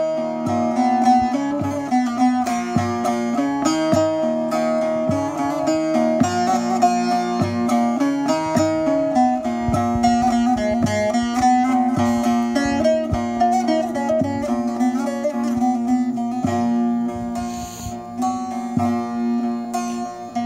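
Bağlama (saz) played solo with a plectrum: a quick run of picked notes over steadily ringing drone strings.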